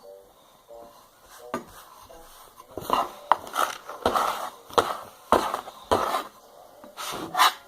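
Kinetic sand being scooped, pressed and scraped in a plastic container: a run of short, crunchy scrapes that starts about three seconds in and repeats every half second or so.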